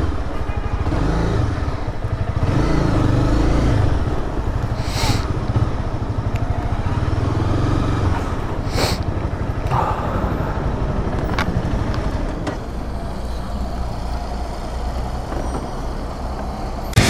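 Honda CBR300R's single-cylinder engine running at low revs as the motorcycle creeps along at walking pace, easing to a quieter idle about two-thirds of the way through. Two short hisses sound in between, about four seconds apart.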